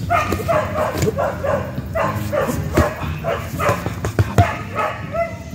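A dog barking over and over, about three short barks a second. Several sharp thuds from strikes landing on a heavy punching bag come in the second half.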